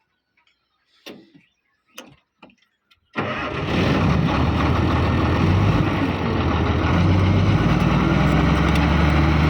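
A few faint clicks, then about three seconds in a bulldozer's diesel engine comes in abruptly and runs steadily at idle.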